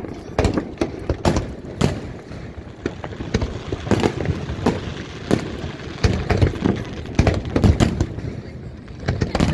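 Aerial fireworks bursting: a quick irregular run of sharp bangs and booms, some with an echo after them, growing denser about two-thirds of the way through.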